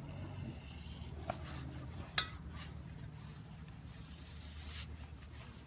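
Light metal clinks and rubbing from cleaning a motorcycle chain, with one sharp click about two seconds in, over a steady low hum.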